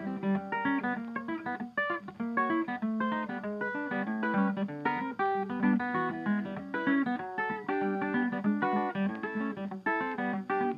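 Background music: acoustic guitar with a quick, steady run of plucked notes.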